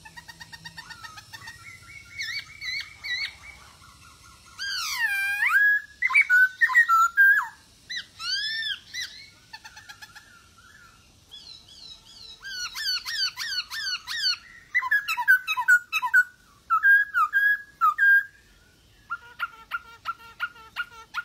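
Black-throated laughingthrush (poksay Hongkong) singing a varied song of swooping whistles and quick chattering phrases, ending in a run of short, evenly repeated notes.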